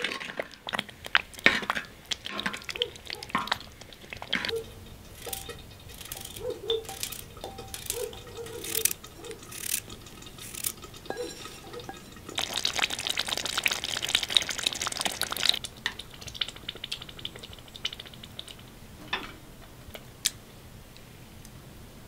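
A spoon stirring thick stew in a glazed clay pot, with many clinks and knocks of the utensil against the pot and china, and a few seconds of wet, liquid noise around the middle. Single clicks follow in a quieter stretch.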